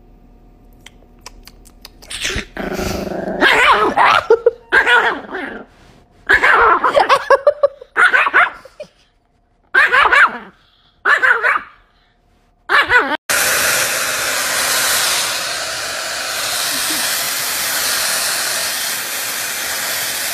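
A small Pomeranian barking and growling in short, loud bursts. From about thirteen seconds in, a hair dryer starts abruptly and runs steadily.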